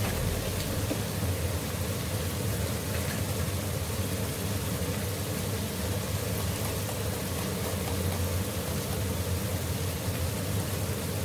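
Onion-tomato masala with cumin seeds sizzling steadily in hot oil in an aluminium pot, with a steady low hum underneath.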